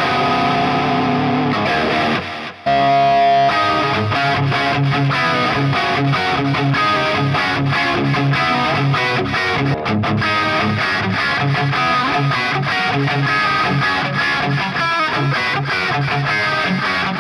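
Distorted electric guitar playing a rock riff, rhythmic low chugging notes under short lead phrases. The playing breaks off about two and a half seconds in and a new take starts. Part of it is the guitar fitted with a Warman Zebra Classic Hot humbucker.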